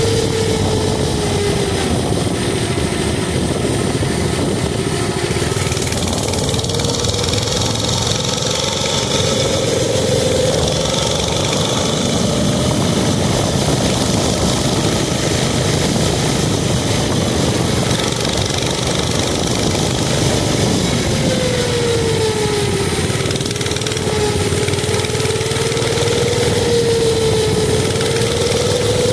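Mini bike's small engine running while riding, its pitch sinking and climbing several times with the throttle, with a dip about three quarters of the way through. Heavy wind noise on the microphone runs under it.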